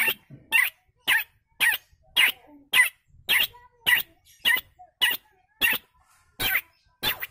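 A man imitating an animal call with his own voice, without any tool: a series of short, sharp calls at about two a second, with a brief pause near the end.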